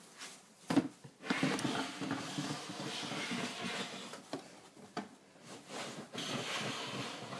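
Plastic storage tub scraping as it is slid in a plastic snake rack, with a few light knocks.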